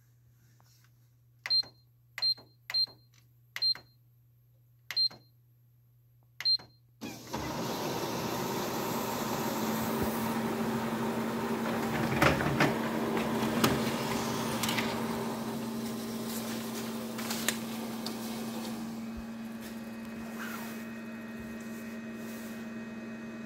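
Canon imageRUNNER 1435 laser copier: its control panel beeps six times as keys are pressed, then the print engine starts and runs loudly with a few clicks as it feeds and prints a service-mode test page, settling to a quieter steady hum near the end.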